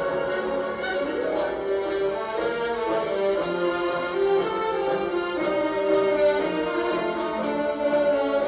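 Orchestral film-score music, a melody carried by sustained string and brass-like notes.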